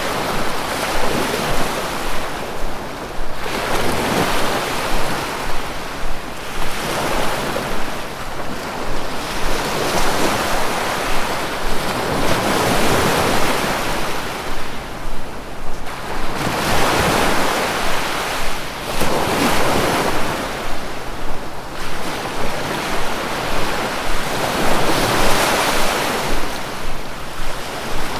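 Sea waves washing ashore, a continuous surf hiss that swells and falls back every few seconds.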